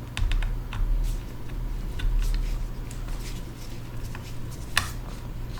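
Light clicks and taps of a small screwdriver and tools working on an iPad, with one sharper click near the end, over a low steady hum.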